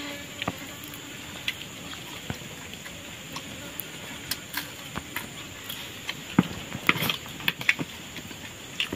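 Eating by hand: scattered small clicks, taps and smacks of fingers working through rice on a plate, and of chewing. A few louder ones come close together about two-thirds of the way in.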